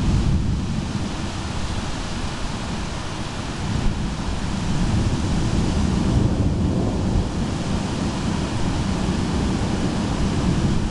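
Thunderstorm wind buffeting the microphone: a steady rushing noise with a heavy, shifting low rumble.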